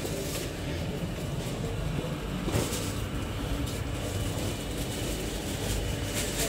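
Steady low rumble of indoor market-hall background noise, with a faint click about two and a half seconds in.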